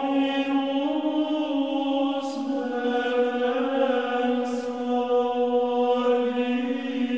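Chanting: one long held vocal note, the pitch stepping down slightly about two seconds in and then holding steady.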